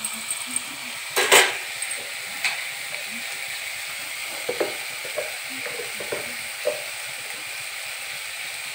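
Chopped vegetables sizzling as they fry in oil in a steel kadai, with the scrapes and knocks of stirring against the pan. The loudest scrape comes about a second in, and a few lighter knocks follow midway.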